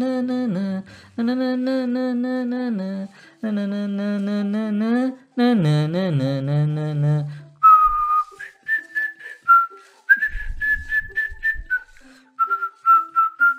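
A man singing a folk-style tune in long held notes, then whistling the melody from about eight seconds in, with short regular clicks alongside the whistling.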